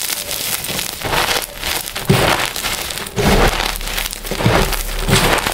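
Crumbled pieces of dyed chalk crunching and grinding as bare hands squeeze them in loose powder: a dense, gritty crackle, with several harder squeezes in the second half.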